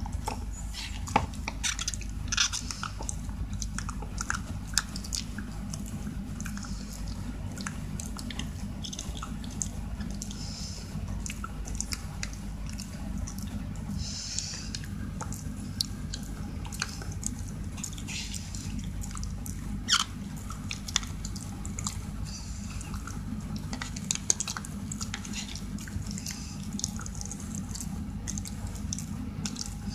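A Shiba Inu gnawing on a dog chew stick: irregular clicks and crunches of teeth on the chew, a few of them louder, over a steady low hum.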